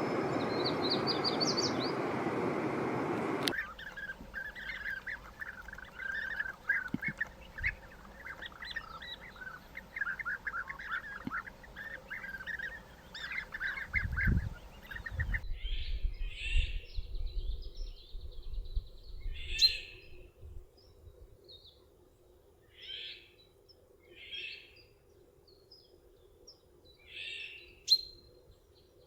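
Birds calling. A short high trill over heavy background noise opens it, then a cut to rapid, dense twittering, and about halfway a cut to sparse single calls a second or more apart over a faint steady hum.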